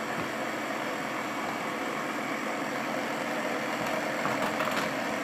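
Battery-powered motorized booster of a Mattel Cars 3 Florida speedway toy track whirring steadily, with a few light plastic clicks near the end.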